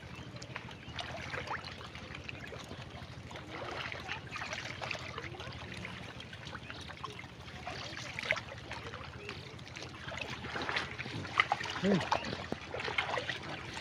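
Pigs moving about in wet mud: a scatter of small wet squelches and splashes, busier near the end.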